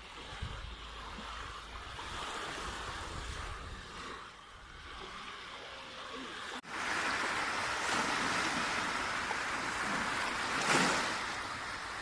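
Small sea waves breaking and washing up on the shore, a steady surf. The surf cuts out for an instant about halfway through, comes back louder, and one wave swells to a peak near the end.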